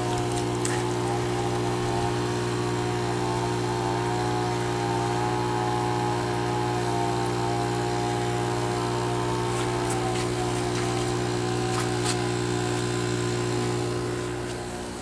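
Electric pump humming steadily: a strong low hum with a wavering higher tone above it, dropping away near the end.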